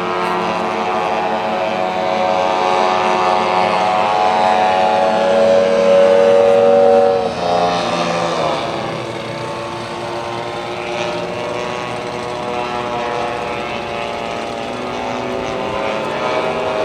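Engine and propeller of a large-scale radio-controlled J3 Cub float plane flying past. The drone rises in pitch and loudness as the plane approaches and is loudest about seven seconds in, then drops sharply in pitch as it passes and fades. Near the end it rises again as the plane comes back.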